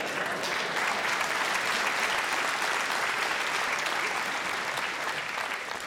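Theatre audience applauding a punchline, swelling about half a second in and tailing off near the end.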